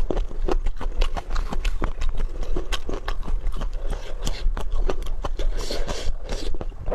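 Close-up eating sounds: rapid crunching and smacking clicks of chewing, several a second, with a noisier stretch near the end.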